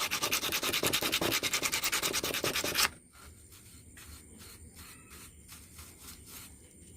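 Hand sanding of carved wood: fast back-and-forth abrasive strokes, several a second, that stop abruptly about three seconds in. After that come only faint light scratches and taps.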